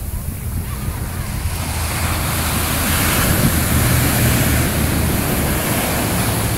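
Ocean surf: waves break and wash up the beach, swelling louder about two seconds in as a large wave crashes. Wind rumbles on the microphone underneath.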